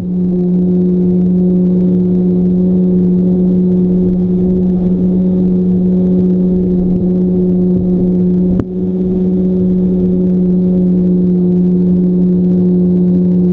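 Radio-controlled plane's motor and propeller heard from the onboard camera: a loud, steady drone that holds one pitch, with a brief click about eight and a half seconds in.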